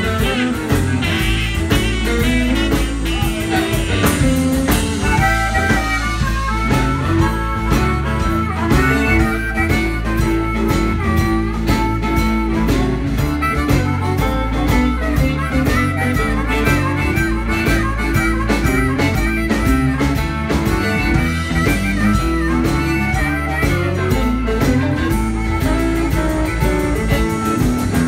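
Live blues band: a harmonica solo, cupped to a microphone, with a wavering, bending melody over electric guitars, keyboard and a steady drum beat.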